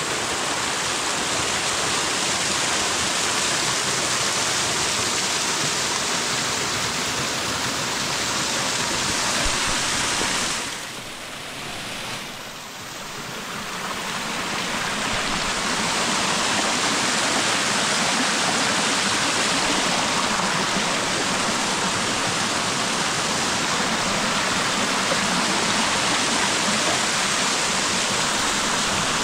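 Rushing water of a small waterfall and rocky stream, a steady loud splashing that dips briefly about eleven seconds in.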